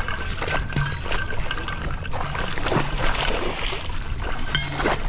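Hooked bass splashing and thrashing at the water's surface near the bank as it is played on a rod, with repeated short splashes and sloshing water.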